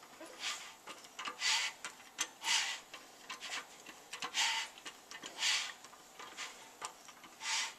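Ratchet wrench clicking in short rasping bursts about once a second, with light ticks between, as the freshly rebuilt Suzuki G16 engine's crankshaft is turned over by hand; it turns easily.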